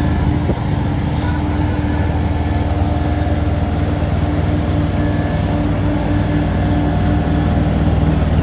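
Diesel engine of heavy paving machinery running steadily at a constant speed.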